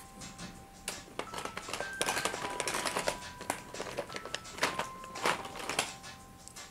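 Clicking and rattling of colored pencils being handled as a new one is picked out, loudest in the middle, over soft background music of single held chime-like notes.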